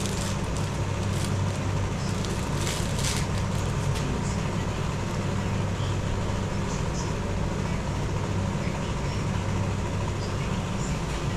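A steady low mechanical hum over a constant noise, with a few light clicks or rustles in the first few seconds.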